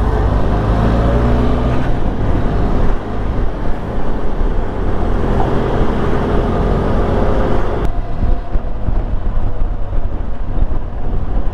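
Benelli TRK 502X's parallel-twin engine running while riding, mixed with a steady rush of wind noise on a helmet-mounted microphone. The higher rushing noise eases suddenly about eight seconds in.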